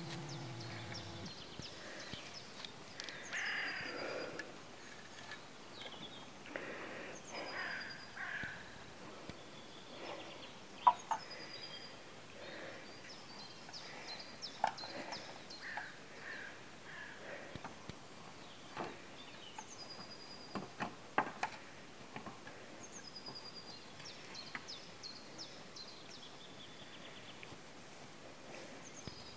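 A songbird repeats a short, high whistled phrase every few seconds. Now and then come sharp knocks and rustling as wooden fence rails are carried and set down in the grass, the loudest knocks about eleven and twenty-one seconds in.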